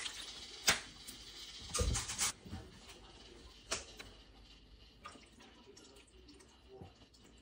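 Soy sauce poured and dripping from a plastic squeeze bottle onto a spoon and into a bowl. There are a few sharp clicks, and a dull knock about two seconds in as a ceramic bowl is handled on the counter.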